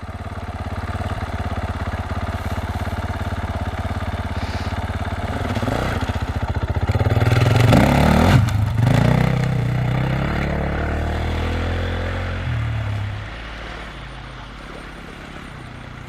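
Engine of a rally-raid competition vehicle running close by. It pulls off and builds to its loudest as it passes about eight seconds in, with the engine note sweeping in pitch, then fades as it drives away.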